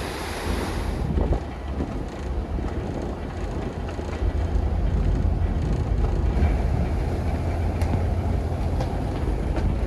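Steady low rumble of a car ferry's engines heard from the open deck while under way. For the first second it is overlaid by the hiss of the churning wake and wind on the microphone, which drop away suddenly.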